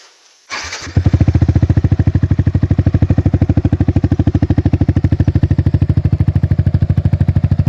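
Yamaha R15 V3's single-cylinder 155 cc engine with a replica Akrapovic R1M aftermarket exhaust starting about half a second in, catching at about one second, then idling loud and steady with an even exhaust pulse.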